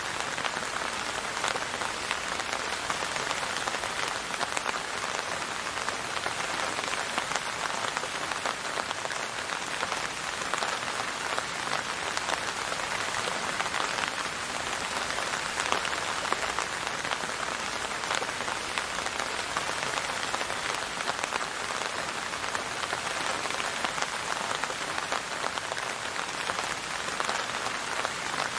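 Steady rain falling on a hard surface, a dense even patter of drops with no thunder.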